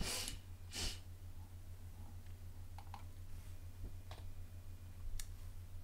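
Two short breaths close to the microphone, then a few soft, scattered clicks, over a steady low hum.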